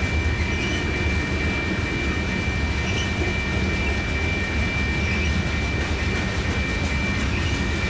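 Freight train cars rolling past: a steady rumble of steel wheels on rail, with a steady high-pitched whine over it.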